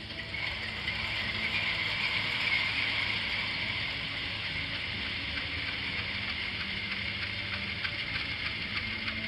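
An HO-scale model CC206 locomotive's digital sound decoder playing a diesel engine through a small speaker: the engine sound comes up about half a second in, then runs steadily as the engine warms up. Faint regular ticking comes in near the end.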